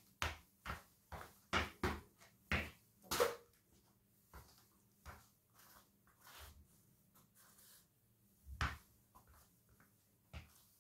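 Fila trainers stamping on a tiled floor and coming down on a bread roll: a quick run of sharp thuds, about two or three a second, for the first three seconds, then scattered softer ones, with a louder stamp about two seconds before the end.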